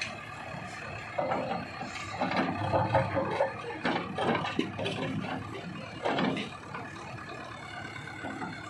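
JCB 3DX backhoe loader's engine working under load as the backhoe arm pushes a boulder. The running sound swells louder irregularly over the first few seconds, with a short louder burst about six seconds in.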